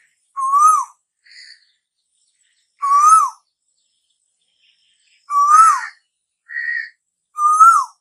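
Asian koel (tu hú) calling: four loud whistled calls, each rising and then dropping sharply, about two and a half seconds apart, with brief fainter notes in between.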